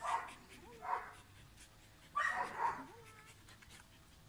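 Samoyed barking in short bursts: once at the start, again about a second in, and a longer double bark a little after two seconds.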